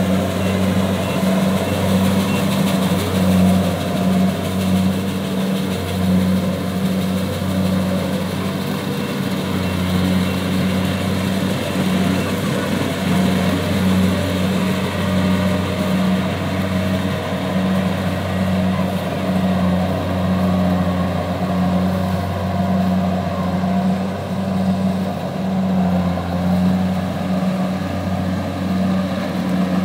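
Kubota DC70 combine harvester running steadily while cutting and threshing rice, its diesel engine giving a continuous low hum that throbs slightly.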